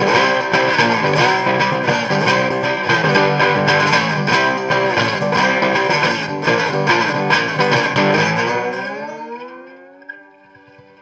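Background music with a steady beat, ending on a long held chord that fades away over the last two seconds.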